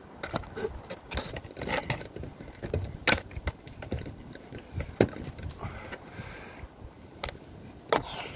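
Irregular sharp knocks, clicks and creaks from movement on a conservatory roof: the plastic roof panels and their frame bars knocking under hand and foot, mixed with bumps from handling the camera.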